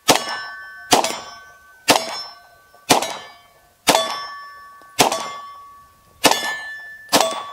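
Glock 43X 9mm pistol fired eight times at a steady pace of about one shot a second, each shot followed by the ringing of a struck steel target.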